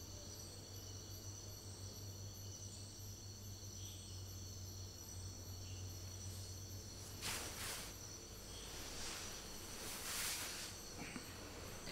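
Night ambience of crickets chirping steadily over a low hum, with two brief soft swishes in the second half.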